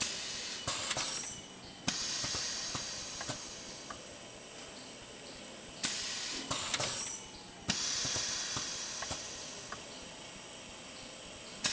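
Automatic indexing drilling machine cycling: sudden bursts of air hiss that fade away, two close together about every six seconds, with small mechanical clicks and knocks between them.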